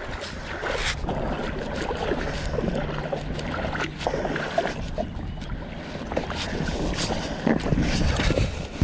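Footsteps splashing and sloshing through ankle-deep water on a sandy tidal flat, uneven and irregular, with wind buffeting the microphone.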